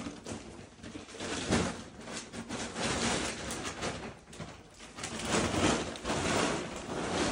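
Kitten eating crumbled wet cat food off a plate, with wet chewing and smacking in irregular bursts that swell and fade every second or so.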